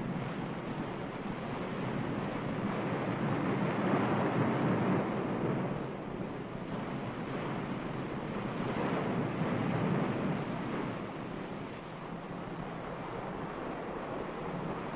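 A steady rushing noise, like surf or wind, that swells and ebbs. It grows louder about four seconds in and again about nine seconds in.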